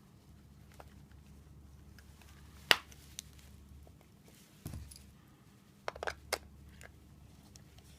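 A few scattered clicks and a dull knock over a faint low hum, the loudest a single sharp click about three seconds in, with a quick run of smaller clicks near the end; no chime tune is heard.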